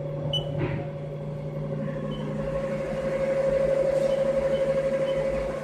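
CNC milling machine with its spindle running clockwise, a steady machine hum with a constant higher tone over it, with a short click about half a second in.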